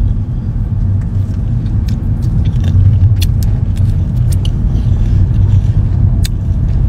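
Steady low rumble of a car heard from inside its cabin, with a few short lip-smacking clicks about three to four seconds in as a finger is sucked.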